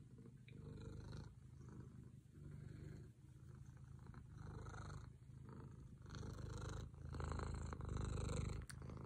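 Domestic cat purring steadily while its chin is scratched, the purr swelling and easing with each breath about once a second and loudest near the end.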